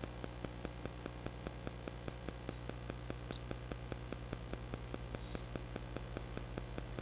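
Electrical hum and hiss from a microphone and sound system, with a steady high whine and a regular ticking about five times a second, typical of electrical interference on the line.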